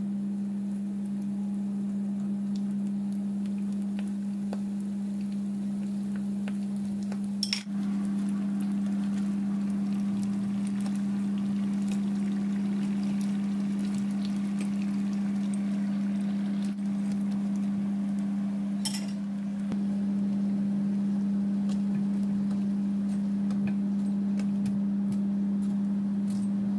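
Spring rolls deep-frying in hot oil in a wok, a fine crackling sizzle, with occasional clinks of metal tongs against the wok. A steady low hum runs underneath throughout and is the loudest thing.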